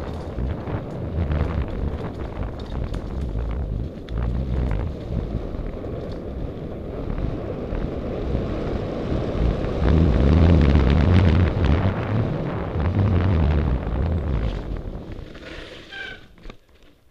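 Wind buffeting the microphone and tyre rumble as a mountain bike rolls fast down a rough dirt trail, with rattling knocks from the bike over the ground. The noise is loudest about ten seconds in and dies away near the end as the bike slows, with a short squeal.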